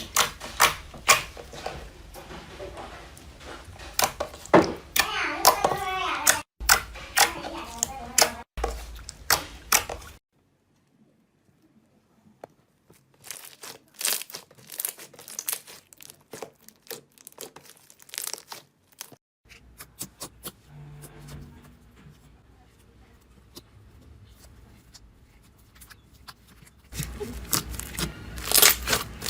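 Slime being squeezed, stretched and poked by hand, making many sharp sticky clicks, crackles and pops. The sound breaks into separate short takes, with a near-silent gap a third of the way in.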